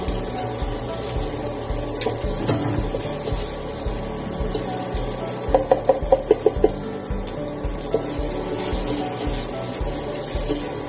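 Background music with a steady beat, over a faint sizzle of diced hotdog and ham frying in a nonstick pan as a spatula stirs them. A quick run of about seven sharp hits comes a little past the middle and is the loudest thing.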